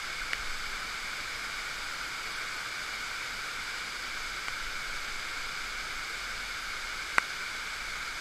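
Steady hiss of rain and running stream water, muffled through a waterproof camera housing, with one sharp click about seven seconds in.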